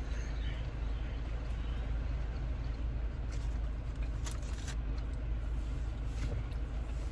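Steady low rumble inside a car cabin, with a few short crunches and clicks of someone eating a salad.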